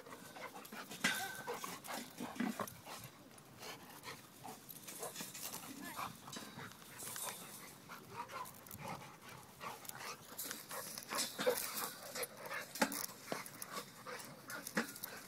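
A Rottweiler and a golden retriever play-wrestling: panting and scuffling, with irregular short scrapes and knocks of paws and bodies, and a brief high dog sound about a second in.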